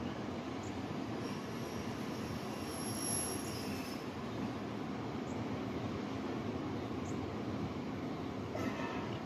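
Steady rushing of wind and breaking surf, with a faint high thin whine from about one to four seconds in and a short burst of sound near the end.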